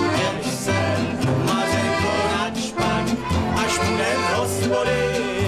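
Two men singing together to a strummed acoustic guitar and a fiddle, a lively folk tune with a steady bouncing beat.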